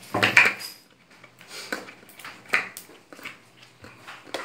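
Plastic slime tubs and lids being handled: a loud clatter at the start, then several separate light clicks and knocks.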